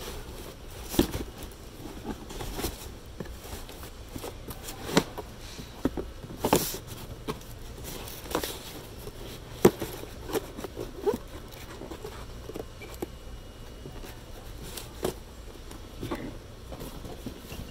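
Irregular knocks, taps and rustles of a boxed Halloween decoration and its cardboard and plastic packaging being handled and packed back into the box, over a low steady store hum. The loudest knock comes a little under halfway through.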